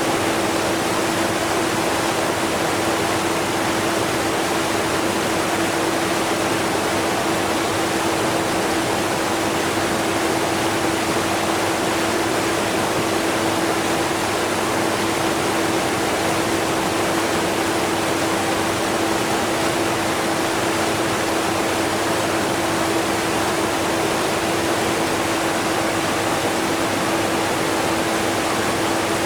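Waterfall rushing, mixed with a running vacuum cleaner, as one unchanging wash of noise with a steady hum underneath.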